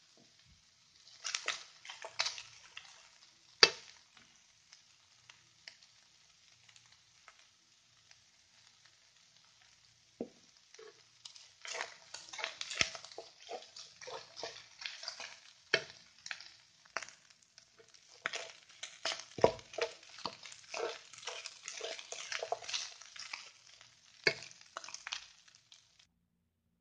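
Wooden spatula stirring and scraping fried rice in a hot pan while it fries. The stirring comes in runs of quick scraping strokes with a few sharp knocks of the spatula on the pan, and pauses for several seconds near the start.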